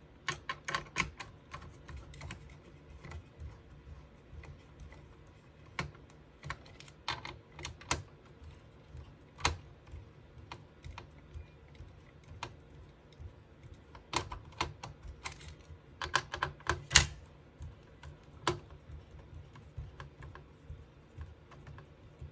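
Irregular small metallic clicks and taps of a screwdriver driving the heat sink screws into a desktop PC's metal chassis, with the fan assembly being handled. The clicks come in bunches about a second in, around seven seconds in, and again from about fourteen to seventeen seconds in.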